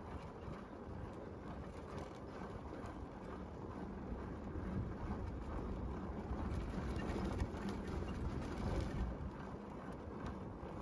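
Steady low rumble of a vehicle driving slowly along a dirt forest road, with wind noise on the microphone.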